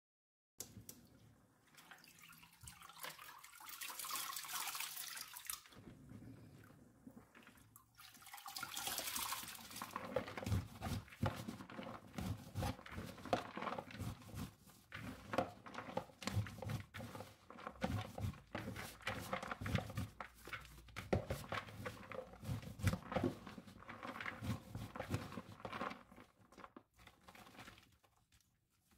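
Wet squelching and sloshing as soaked black-eyed beans are squeezed and rubbed by hand in a bowl of water, a stage in loosening their skins. In the first ten seconds there are two stretches of running or pouring water.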